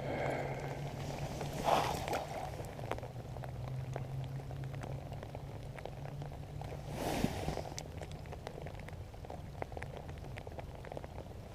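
Rain falling, with many small raindrop ticks over an even wash of noise and a steady low hum underneath. Two louder rustling swells come about 2 seconds in and about 7 seconds in.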